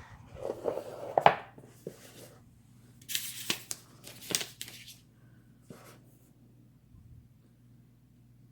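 Handling of the new phone's plastic packaging: rustling with a few sharp clicks, then two hissy bursts of plastic film tearing or crinkling a few seconds in, ending with a light tap.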